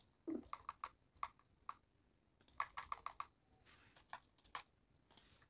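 Faint clatter of computer keyboard keys, struck singly and in quick runs of several strokes, as lines of code are re-indented.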